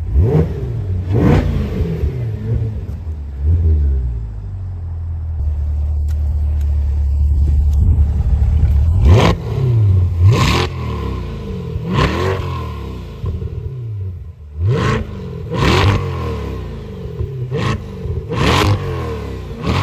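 Corvette C8 E-Ray's 6.2-litre V8 revved in neutral: a low idle broken by a series of short, sharp throttle blips, each falling quickly back to idle. Two blips come near the start, then a steadier stretch, then rapid repeated blips through the second half.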